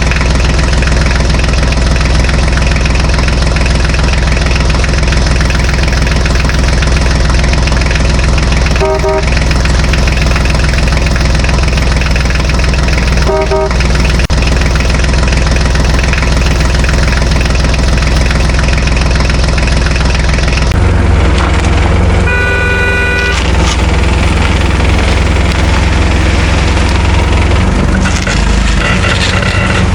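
Vehicle engine running steadily with a deep hum, with short horn toots about nine and thirteen seconds in and a higher-pitched horn blast a little past twenty-two seconds; the engine note shifts lower and heavier just before that last horn.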